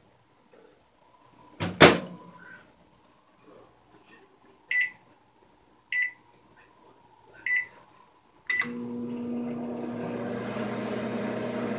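Rival microwave oven door shut with a sharp knock, then three short beeps from the keypad as it is set, then a click and the oven starts running with a steady hum and fan noise.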